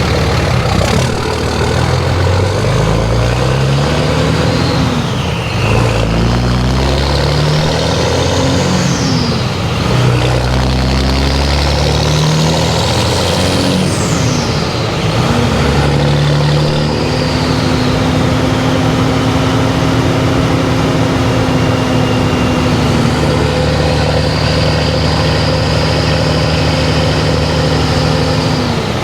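2006 Dodge Ram 2500's 5.9 Cummins turbo diesel accelerating, its engine pitch climbing and dropping back several times, with a high turbo whistle rising and falling along with it, loudest about halfway through. It then settles into a steady engine note with a steady whistle. The whistle is made louder by the turbo's silencer ring being removed.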